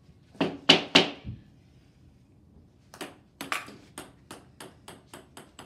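Ping-pong ball clicking hard off paddles and the table three times in quick succession, then after a short pause a run of about a dozen lighter bounces, about five a second, growing fainter.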